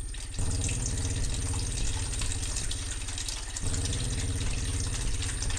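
Liquid pouring from a swing-top bottle into a hanging plastic tub and trickling out through a small tap into a tub below, over a low steady drone.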